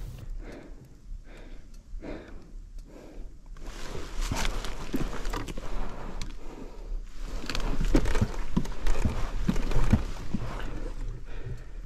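A person's footsteps and rustling through leaves and brush, with sharp crackles and snaps. The first few seconds hold rhythmic heavy breathing, about two breaths a second.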